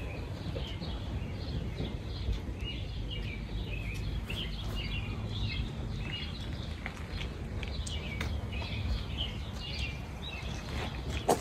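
Small birds chirping and calling in many short, quick notes over a steady low rumble.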